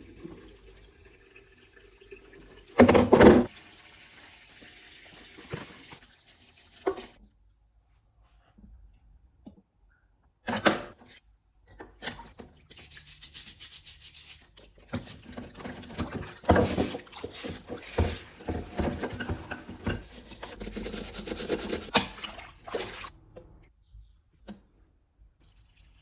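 Shower head being cleaned of limescale: water running and splashing, with rubbing, scrubbing and small knocks of handling, in several separate stretches broken by short silences. A short loud burst comes about three seconds in, and a few faint ticks near the end.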